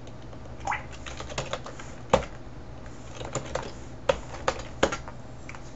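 Computer keyboard keys being typed: an irregular run of separate key clicks, with one louder keystroke about two seconds in.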